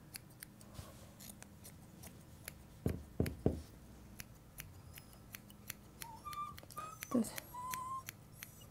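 Thinning scissors snipping through a Yorkshire terrier puppy's leg hair: small sharp clicks, irregular and about one or two a second. A few dull thumps come about three seconds in, and short high squeaks sound near the end.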